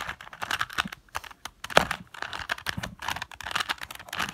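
Rubik's cube being twisted rapidly by hand, its plastic layers clicking and clacking in quick, irregular runs.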